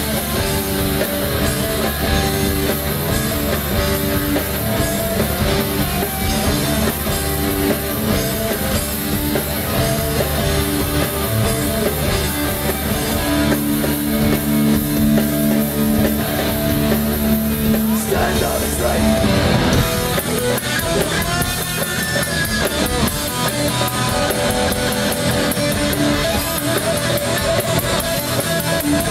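Live rock band playing loud: distorted electric guitar, electric bass and drum kit.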